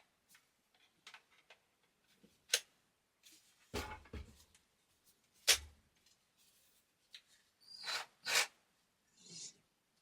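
Scattered clicks and knocks of plastic tool parts being handled, with two sharp clacks about four and five and a half seconds in: a Makita-style slide battery being fetched and clipped onto a cordless reciprocating saw.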